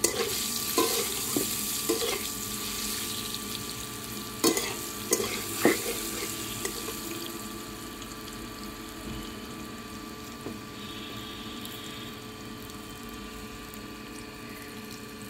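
Whole boiled potatoes sizzling in hot oil in a metal kadai. A metal spatula knocks and scrapes against the pan about six times in the first six seconds, and the sizzle slowly dies down.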